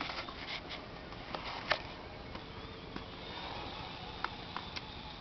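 Steady low background hiss on an open boat, with a few scattered sharp clicks and taps from hands working a fishing rod and reel.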